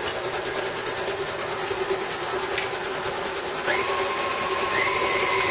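KitchenAid stand mixer running with a fast, even mechanical rhythm while its beater works butter, sugar and an egg in the bowl. About two-thirds of the way through, a whine rises in pitch, then holds higher, and the sound gets louder.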